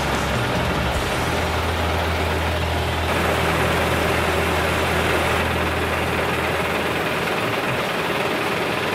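Diesel engine of a UD Trucks Quon tractor unit idling steadily, a low rumble that thins out near the end.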